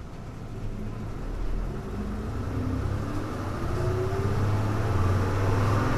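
Hino Blue Ribbon city bus engine accelerating, heard from inside the bus: a low rumble that grows steadily louder as the engine's pitch climbs.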